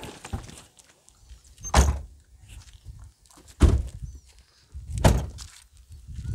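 Three loud, dull thumps about a second and a half apart, heaviest in the bass, with faint rustling between them.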